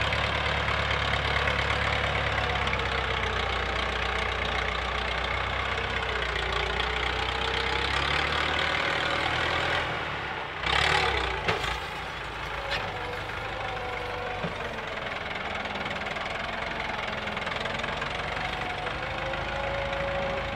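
Massey Ferguson 265 tractor's three-cylinder diesel engine running hard under load, hitched to a heavily loaded trolley, its pitch wavering as the revs rise and fall. About eleven seconds in, a short, loud burst of rasping noise rises above the engine.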